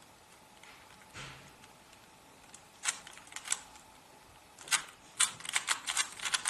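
Plastic 3x3 Rubik's Cube being turned by hand, its layers clicking as they snap round: a couple of clicks about three seconds in, then a quick run of turns in the last two seconds.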